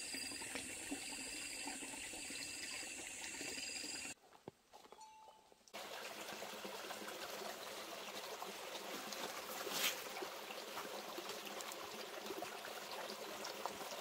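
Shallow stream trickling and running over gravel and stones. For the first four seconds a high steady tone with short chirps repeating about once a second sits above the water. After a brief drop-out the running water comes back fuller, with one sharp splash near ten seconds in.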